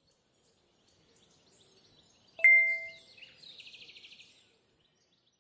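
Intro-animation sound effect: a single bright bell ding about two and a half seconds in, ringing out for about half a second, followed by a quick twinkling trill of about ten pulses a second that fades within about a second.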